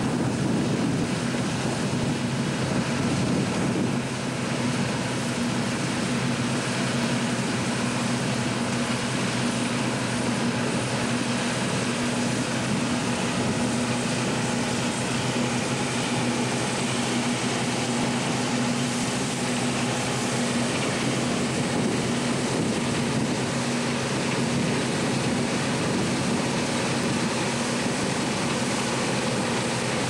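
Deutz-Fahr M35.70 combine harvester at work, its engine and threshing machinery giving a steady, even drone with a low hum, with a tractor running alongside.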